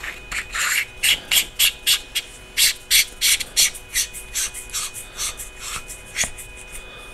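Maeerxu M8 flashlight being screwed back together by hand over a 26650 cell: its threads rubbing in a run of short scraping rasps, several each second.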